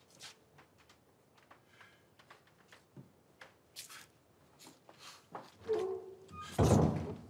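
Quiet, scattered footsteps and light clicks from several people walking into a room. About six and a half seconds in comes a brief louder burst of sound, the loudest event.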